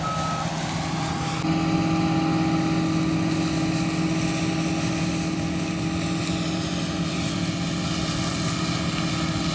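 Heavy harvest machinery engine running steadily with a thin whine over it, getting louder about a second and a half in and then holding. A reversing beeper's last beep ends right at the start.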